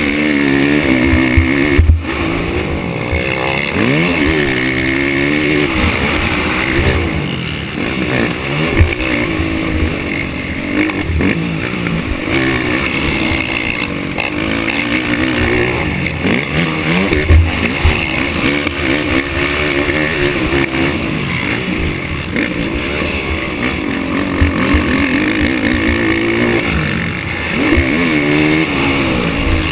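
Racing ATV engine revving up and falling back again and again as the quad is ridden around the track, with a few sharp knocks.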